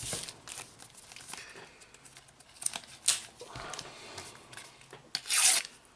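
Stickers and a paper sticker packet being handled on a desk: light taps and rustles, then a short loud crinkle of the packet wrapper about five seconds in.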